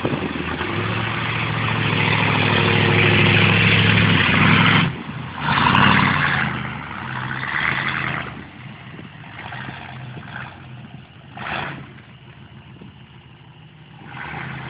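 Pickup truck engine revving hard under load through mud for about the first five seconds, then dropping off and fading as the truck moves away. A few short rushing noises follow.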